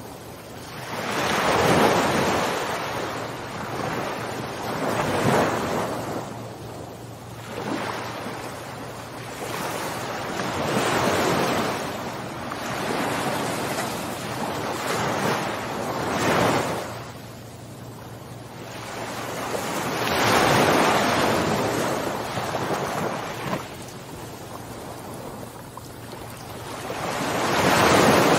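Ocean surf washing onto a sandy beach, each wave swelling up and falling away again, with a surge every few seconds.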